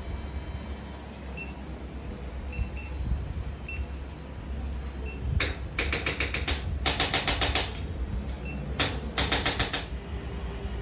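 Several bursts of rapid clicking, each about a second long, starting about halfway in, over a steady low hum. There are a few short high beeps in the first half.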